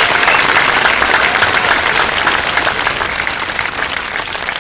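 Audience applauding, many hands clapping densely, gradually dying down toward the end.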